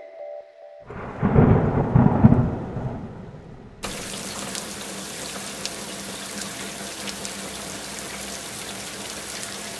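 A roll of thunder about a second in, rumbling and fading, then a steady hiss of rain that starts suddenly about four seconds in, with light patter.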